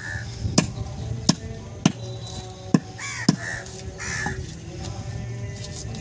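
Cleaver chopping goat meat and bone on a wooden log block: about six sharp strikes in the first three and a half seconds, then the chopping stops. A bird calls harshly a few times in the background.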